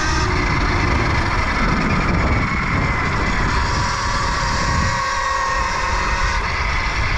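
Electric dirt bike motor whining as it is ridden, its pitch rising and falling with the throttle, over the low rumble of wind on the microphone.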